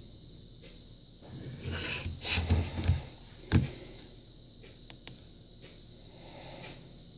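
Plastic housing of a Spypoint Link 3G trail camera handled and turned over on a table: rubbing and knocking for a second or two, then one sharp clack about three and a half seconds in. A couple of faint clicks follow as its buttons are pressed to shut it down.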